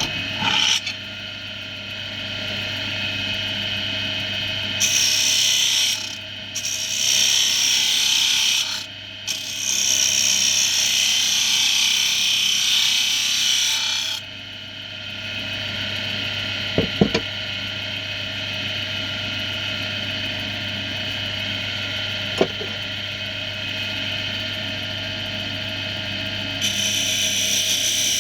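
Axminster AC240WL wood lathe running steadily with an English oak blank spinning, and long stretches of scraping hiss as the wood is worked against the spinning surface, from about five seconds in to fourteen and again near the end. Two short sharp knocks in between.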